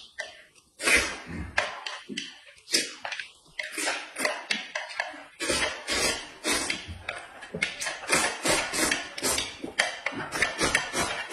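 Close-up eating noises: noodles slurped and chewed straight off a plate, with chopsticks tapping and scraping the plate, in a rapid, irregular run of short sharp mouth sounds.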